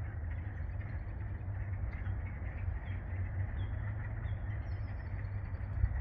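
A chorus of frogs calling steadily from the wetland, heard as a dense, even band of calls over a louder steady low rumble, with a few faint, short bird chirps.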